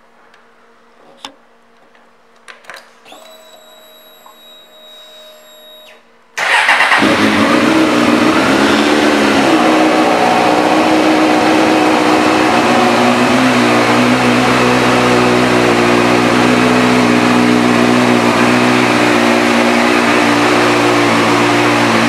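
2003 Suzuki GSX-R 600's inline-four engine being started: a few clicks and a faint steady whine as the ignition is switched on, then the engine fires about six seconds in and idles steadily through its aftermarket slip-on exhaust.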